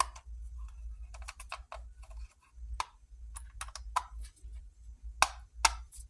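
Irregular sharp clicks and taps of the plastic parts of a 1:24 scale Chevy Silverado model being handled as its bottom is fitted back on. Two louder clicks about half a second apart come near the end, over a steady low hum.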